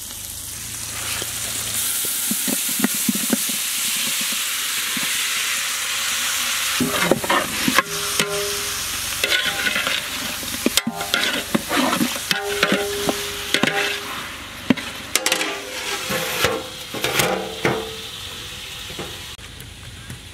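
Chicken pieces sizzling in hot oil in a large aluminium pot, a steady hiss. In the second half a metal ladle scrapes and clanks against the pot as the pieces are stirred, the pot ringing briefly on some strokes.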